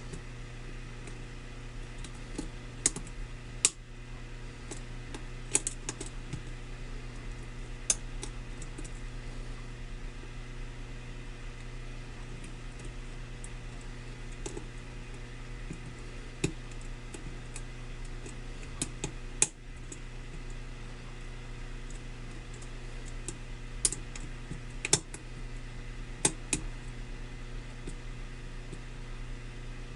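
Lock pick and tension wrench working the pins of a pin-tumbler lock: scattered small, sharp clicks at irregular intervals as pins are lifted and set, over a steady low hum.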